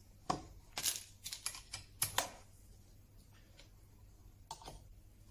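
Sharp clicks and knocks of a sash cramp being handled: its sliding head moved along the bar and set against the edge of a glued-up wooden panel. A quick run of clicks comes in the first two seconds, then a couple more later.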